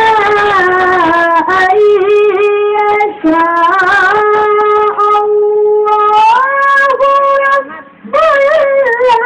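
A qari's voice chanting Quran recitation in the melodic tilawah style: long, high, ornamented notes that waver and glide. He breaks briefly about three seconds in and takes a longer breath just before the end.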